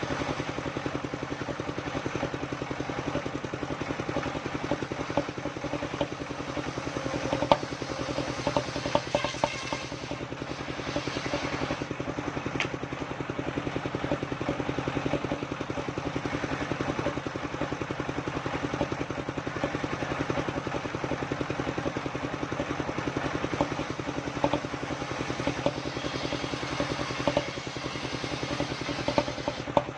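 The engine of a homemade circular-saw sawmill running steadily at an even speed. Scattered sharp knocks and clatter come mostly between about 7 and 13 seconds in.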